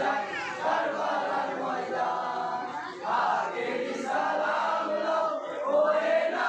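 A group of men chanting a Bengali marsiya, a Muharram lament for Husain, together in chorus, many voices at once.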